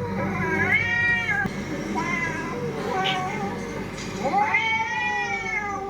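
Cats meowing and yowling in a series of drawn-out, arching calls. The longest call starts about two-thirds of the way through and lasts about a second and a half.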